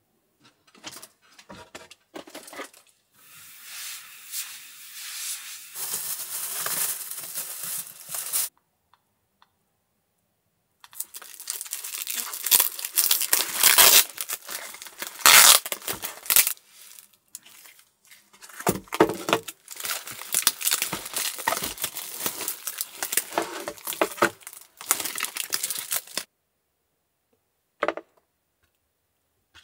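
A foil packet crinkling and tearing as it is handled and opened by hand, in two long stretches of dense rustling with a pause between, and a single short click near the end.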